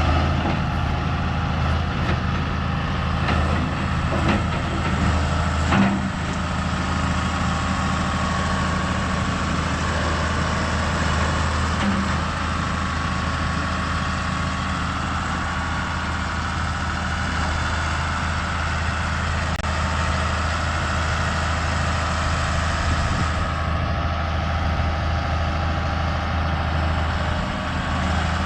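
Heavy engine running steadily at a constant speed, with a few brief knocks in the first several seconds.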